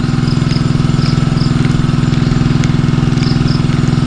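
A small engine idling steadily close by: an even low hum with a fast, regular pulse.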